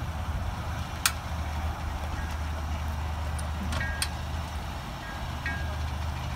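Suzuki Grand Vitara 4x4 engine idling steadily, with a few sharp metallic clinks from the boat trailer as it is climbed on, the loudest about a second in and two more close together around four seconds in.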